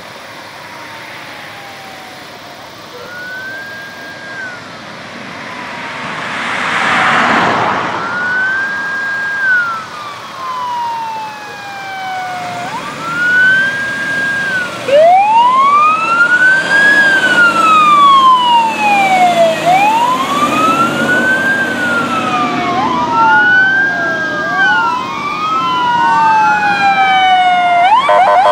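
Fire-apparatus and emergency-vehicle electronic sirens in wail mode, slowly rising and falling, first one and then several overlapping as the vehicles approach, with a loud rush of noise about seven seconds in. A truck engine runs under the sirens in the middle, and rapid warbling phaser sweeps start near the end.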